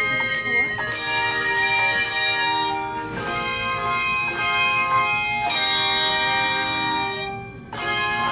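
Handbell choir playing a Christmas song: chords of struck handbells that ring on and fade, with a new chord every second or two. The ringing dies down just before a fresh chord near the end.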